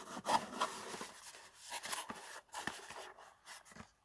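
Cardboard packaging insert rubbing and scraping against the storage case as it is worked loose and lifted out: an irregular run of rustles and small taps.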